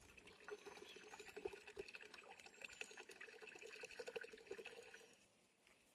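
Faint trickle of coconut water pouring from an opened coconut, with many small splashes over a steady liquid tone, stopping about five seconds in.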